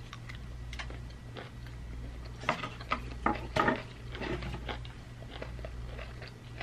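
Biting into and chewing crisp green mango slices, with a cluster of short, sharp crunches in the middle.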